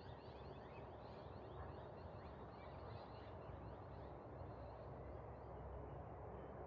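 Faint birds calling together at dusk, many quick falling chirps, over a low steady background rumble. The chirping thins out about four seconds in.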